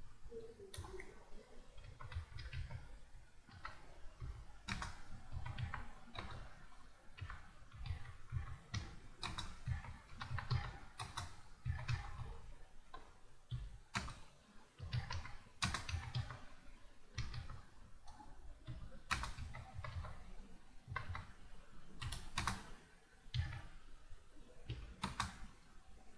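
Computer keyboard being typed on by a beginner in a typing lesson: a dense, irregular stream of key clicks, uneven in pace with brief pauses between runs.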